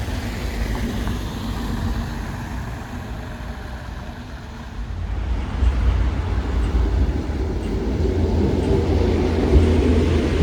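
Inside an A32 tram under way: a steady low rumble from the wheels and running gear, growing louder about halfway through.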